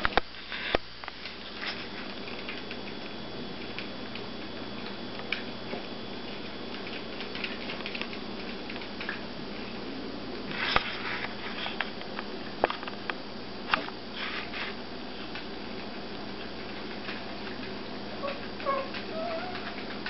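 Small dogs stirring in blanket-lined beds: faint rustling and sniffing with scattered light clicks over a steady household hum, and a few brief high squeaks near the end.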